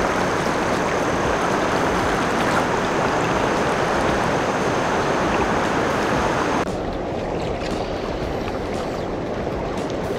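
River current rushing and splashing around a wading angler's legs, a steady rush of water. About two-thirds of the way in it drops suddenly to a slightly quieter, duller rush.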